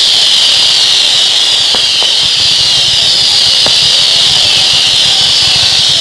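Ground-fired fireworks, fountains and comets, hissing loudly and steadily, with a few sharp pops as shots go off about two and four seconds in.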